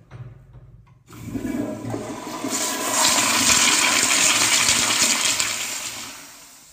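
Toilet flushing: a rush of water starts about a second in, is loudest for about three seconds, then tails off.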